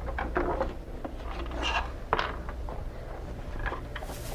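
Phillips screwdriver backing out a mounting screw from a trolling motor's plastic base, with scattered light clicks and scrapes of handling, and a short hissing scrape about four seconds in.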